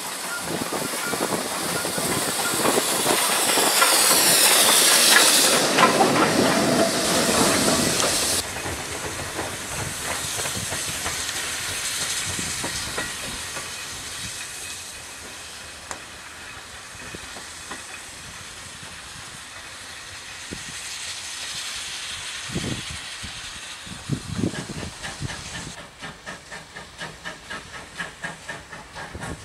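Steam locomotive letting off steam: a loud hiss that builds over several seconds and breaks off about eight seconds in, then a quieter steady hiss that swells again briefly. Near the end a quick regular pulsing beat sets in.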